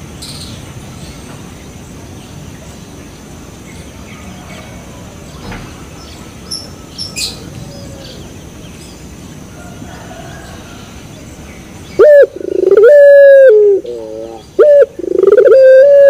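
Three-month-old puter pelung, a young ringneck dove, cooing loudly close to the microphone from about twelve seconds in: a long held note, a run of short wavering notes, then another long note. Before that only low background noise with a few faint high chirps.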